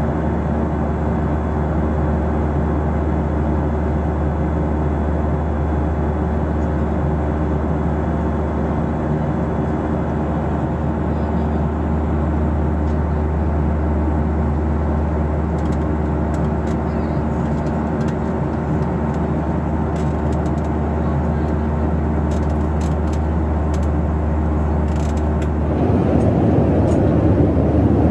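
Steady cabin drone of a Boeing 737-800 airliner, its engines and airflow giving a low hum with several steady tones. Near the end it changes abruptly to a louder, rougher rushing noise.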